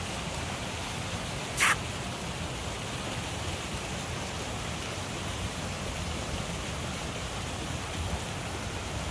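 Steady outdoor background noise with a low, uneven rumble like wind on the microphone, broken once about one and a half seconds in by a short, sharp hiss-like noise.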